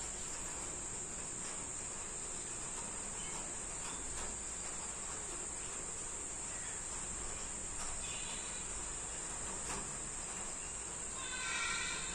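Steady, high-pitched trilling of crickets. A few faint ticks come through it, and a brief pitched call sounds near the end.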